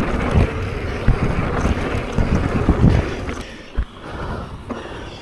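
Wind rushing over the camera's microphone and a mountain bike's knobby tyres rolling down a dry dirt trail, with low thumps as the bike hits bumps. The rushing eases about three seconds in, and there is one sharp knock a little later.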